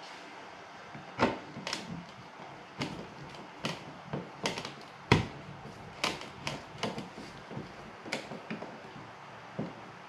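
Screwdriver fastening the screw of a receptacle cover plate: irregular sharp clicks and taps, about a dozen over several seconds, as the tip and screw knock against the plate.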